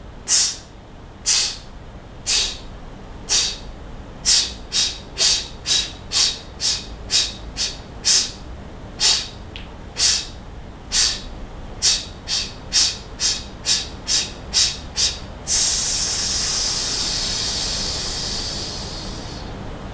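A man's hissing "sss" breathing drill for singers, driven from the diaphragm: four short staccato hisses about a second apart, then eight quicker hisses at half-beat spacing. The pattern repeats, and ends in one long held hiss of about four seconds that slowly fades.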